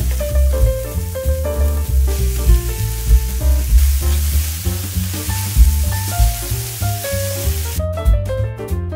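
Diced onion, eggplant and bell peppers sizzling in oil in a stainless steel frying pan as they are stirred with a wooden spoon, over jazzy background music. The sizzling cuts off near the end, leaving only the music.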